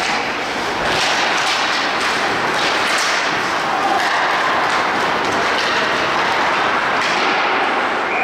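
Ice hockey play: skates scraping the ice, with repeated sharp knocks and thuds of sticks and puck against the boards.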